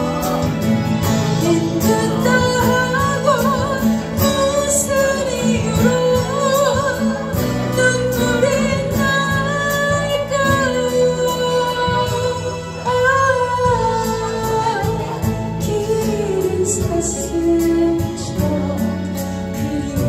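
A woman singing a slow Korean ballad with vibrato, accompanying herself on a strummed acoustic guitar.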